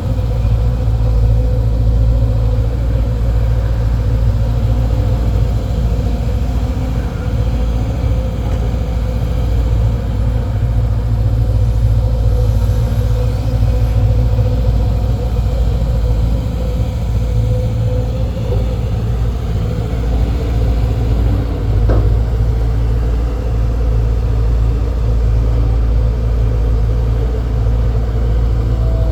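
Four-cylinder diesel engine of a hydraulic excavator running steadily with a deep rumble, with a single faint knock about two-thirds of the way through.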